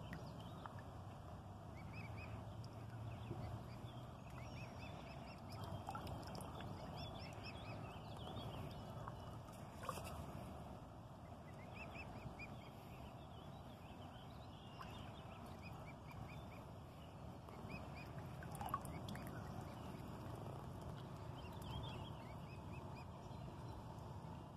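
Mute swan cygnets peeping in short, high calls, scattered throughout over a steady low background rumble, with a couple of sharp clicks.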